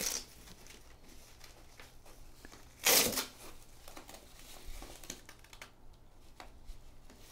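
Hook-and-loop straps of an ankle brace being pulled and fastened. There is one loud ripping rasp about three seconds in, with fainter scrapes and rustles around it.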